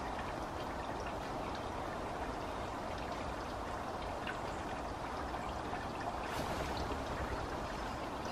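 Steady rush of running stream water, with scattered small drip-like ticks and a slight swell about six seconds in.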